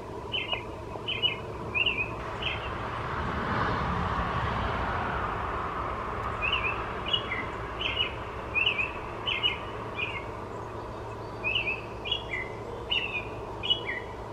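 A songbird singing a repeated series of short, clear chirping notes, about one and a half a second, in three runs with pauses between them. A swell of rushing noise rises and fades in the first pause, around four seconds in.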